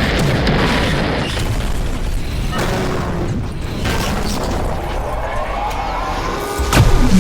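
Booming, explosion-like sound effects over music, with a rising tone in the last few seconds and a sharp crack near the end.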